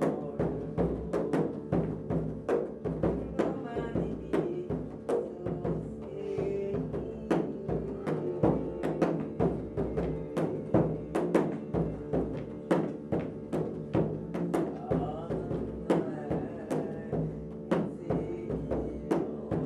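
Frame drum struck by hand in a steady rhythm, about two to three strokes a second, over a steady held drone in the music.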